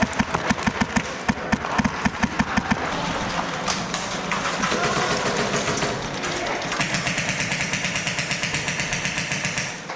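Airsoft rifle firing on full auto: a rapid, even string of shots for about three seconds, then another fast string near the end.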